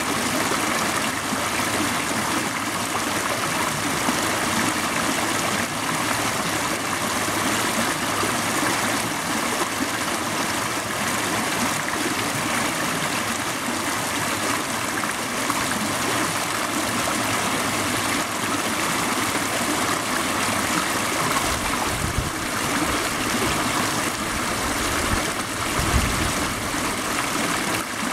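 Water bubbling and rushing over rocks into a shallow pebbly pool, a steady babble that does not let up. A couple of brief low rumbles come near the end.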